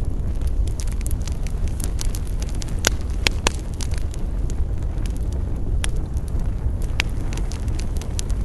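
Campfire burning with a steady low rumble, the wood crackling and popping in frequent sharp snaps, a few louder pops a third of the way in.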